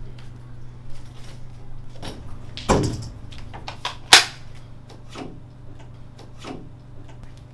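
A steady low hum under scattered knocks and clicks: a dull thump nearly three seconds in, and a sharp, loud click a little after four seconds.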